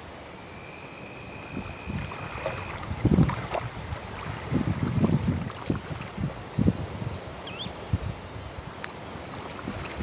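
Salt-marsh ambience: insects keep up a steady high shrill with a fast repeated chirping under it, while soft irregular splashes of shallow water come and go, most of them in the middle. A clear whistled note holds for about two seconds near the start, and a short bird chirp comes late on.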